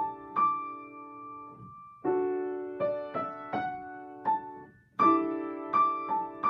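Sohmer & Co. piano playing a short passage in D major: a left-hand D major chord held under single right-hand notes stepping up and back. It comes in three phrases, each opening on a freshly struck chord, with brief pauses between them.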